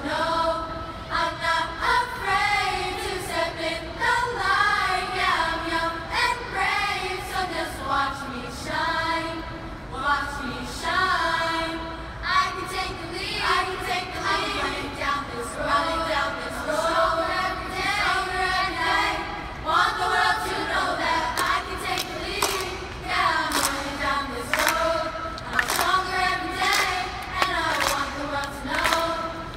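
A girls' youth chorus singing a song in unison and harmony. In the last seconds the singers clap in time with the song.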